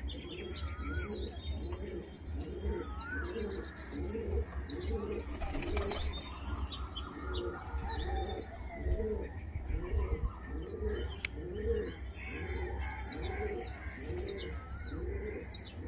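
A flock of teddy pigeons cooing, with many overlapping coos repeating steadily, over high, short falling chirps from other birds. A steady low rumble runs underneath.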